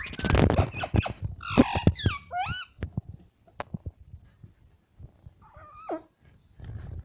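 Pet parrot calling: a harsh screech at the start, then a few warbling calls that bend up and down in pitch, with sharp clicks in between and another short call near the end.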